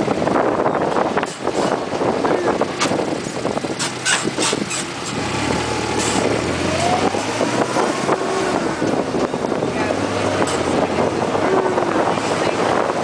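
Golf cart driving along a paved path: a steady running and road noise, with a few sharp knocks and rattles about three to five seconds in.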